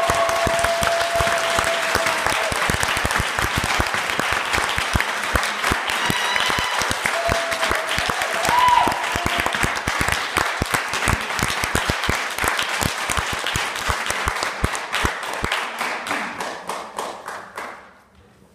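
Audience applause: many hands clapping steadily, thinning out and dying away near the end.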